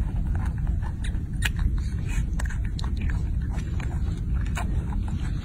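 A baby monkey chewing grapes with a mouthful, making irregular wet clicks and smacks, several a second, over a steady low rumble.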